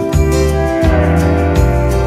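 Background music with a steady beat and a deep bass line that changes note about twice a second.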